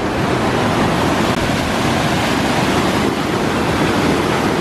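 Loud, steady rushing of a river running high in flood, whitewater pouring over rapids.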